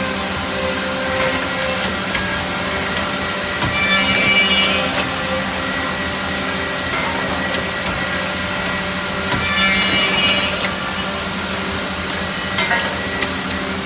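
Automatic double-end CNC tenoning machine running, its motors humming steadily, with two louder cutting passes through wood about 4 and 10 seconds in, each lasting a little over a second.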